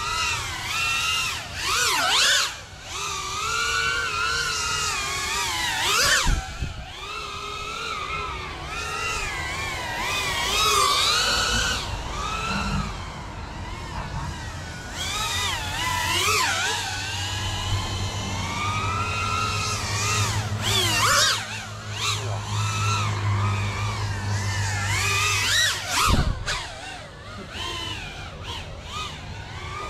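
GEPRC CineLog35 cinewhoop drone in flight: its brushless motors and propellers whine, the pitch rising and falling all the time with the throttle and sweeping up sharply on punches. A low steady hum joins in for several seconds in the second half.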